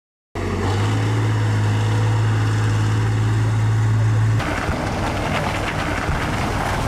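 Engine of a BM-21 Grad rocket-launcher truck running, with a steady deep hum. About four seconds in the sound changes suddenly to a rougher, noisier engine sound.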